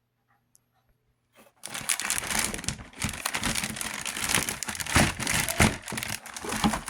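Packaging crinkling and tearing as toys are unpacked by hand. It starts about a second and a half in and goes on in a dense run of crackles.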